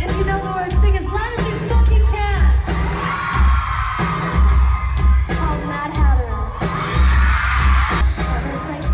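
Live pop concert heard from within the crowd: a female singer with a band of drums and keyboards, with heavy, booming bass beats and a sung melody that rises and falls, and the crowd faintly audible underneath.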